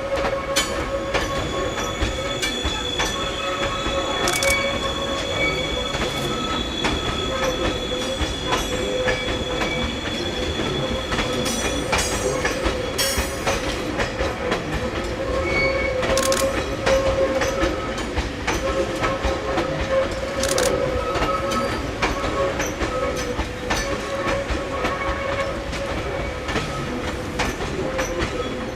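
E351 series electric train moving on depot track, its wheels giving a steady high squeal, with scattered clicks as the wheels cross rail joints.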